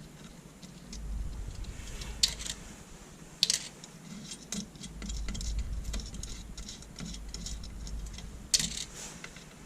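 Chassis screws being taken out of a metal monitor housing with a screwdriver: a run of small metallic clicks and ticks of tool, screws and washers, with three sharper clicks, the first two a couple of seconds in and the last near the end.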